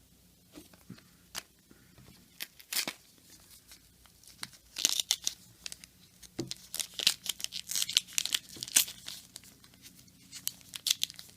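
Paper wrapper of an old trading-card pack being torn and crinkled by hand, in scattered rips that get busier from about halfway. The aged pack won't open cleanly and has to be ripped open.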